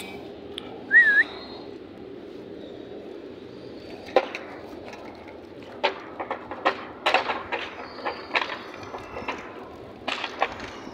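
A short whistled note with a slight wobble about a second in, then a run of irregular sharp taps and clicks on hard ground.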